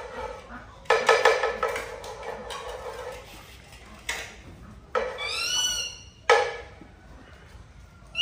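Metal kitchen utensils clattering and scraping against a pan, with a couple of sharp knocks. A short run of high, falling squeaks comes about five seconds in.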